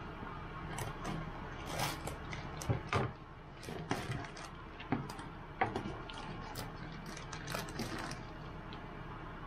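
A spatula stirring a thick dried-chili sauce in a wok, scraping and knocking against the pan in irregular strokes, over a steady low hum.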